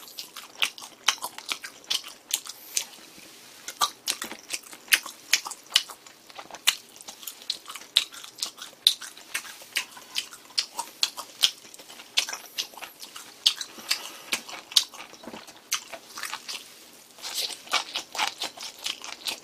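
A person chewing grilled pork belly close to the microphone: many irregular, sharp mouth and teeth clicks with wet chewing noise throughout.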